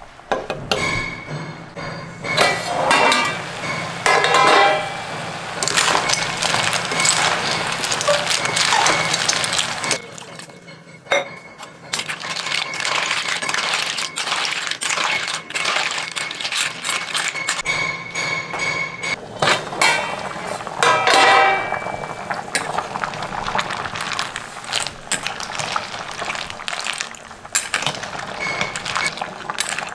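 Steel ladle stirring and scraping through a pan of water snails in curry, the shells clinking against the metal pan and ladle over the bubbling of the cooking sauce.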